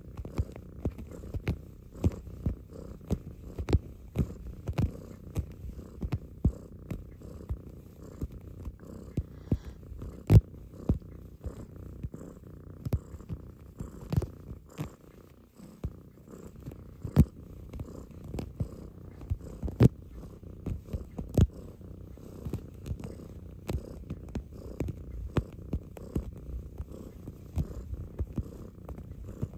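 Domestic cat purring steadily while kneading, with irregular sharp clicks and taps throughout.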